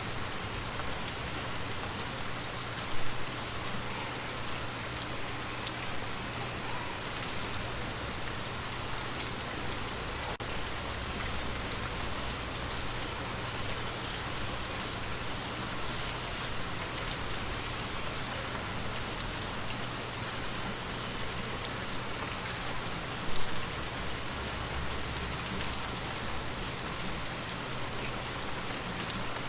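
Steady rain falling on surfaces, an even hiss of many drops, with two brief louder knocks, one about three seconds in and another about two-thirds of the way through.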